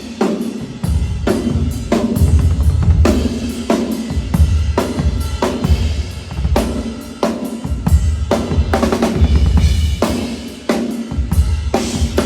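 Rock drum kit played at a soundcheck: kick drum, snare and cymbals in a steady groove, with heavy low bass underneath.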